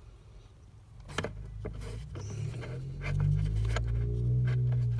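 Scattered clicks and knocks of a plastic HVAC blend-door actuator being handled and pushed into place under a car's dashboard. A low hum grows louder in the second half.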